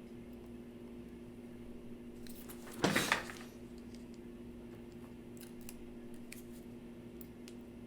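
Small tools and phone parts being handled on a repair bench: a brief cluster of clicks and rustling about three seconds in, then a few faint ticks, over a steady electrical hum.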